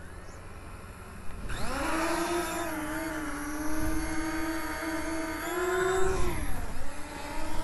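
Small quadcopter drone's propellers whining as the motors spin up about a second and a half in, then holding a steady pitch as it flies, before the whine drops and fades near the end. Wind rumbles on the microphone underneath.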